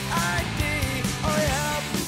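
Rock music soundtrack: a sliding, bending melody line over steady bass and drum beats.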